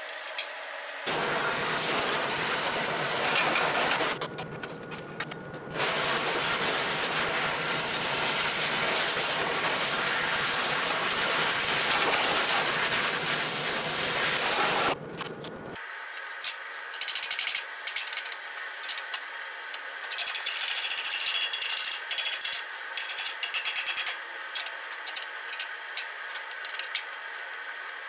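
Metalworking shop sounds: a steady hiss runs for most of the first half, cut off briefly twice, then gives way to quick, irregular scratchy strokes.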